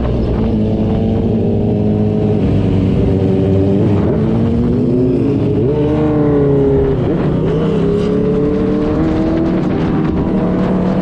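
Motorcycle engine running through an aftermarket racing exhaust while riding, its pitch rising and falling with the throttle, with two quick dips and climbs near the middle.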